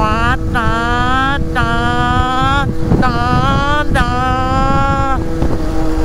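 Two-stroke engine of a Derbi 50 with an 88 cc Stage 6 kit, revving in pulses: the throttle is shut briefly about once a second and reopened, the pitch jumping up each time, with wind noise on the microphone.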